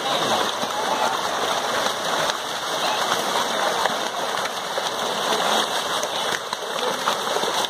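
A packed crowd of catfish thrashing and splashing at the water surface as they feed: a steady, dense spatter of water, like heavy rain.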